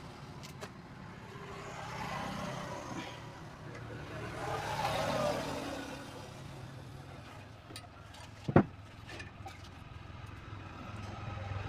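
Road traffic going by in the background, swelling and fading as vehicles pass, with a few light clicks and one sharp knock about eight and a half seconds in.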